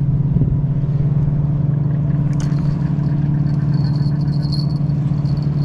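An engine running steadily, a low even hum. A faint high-pitched whine joins it about four seconds in.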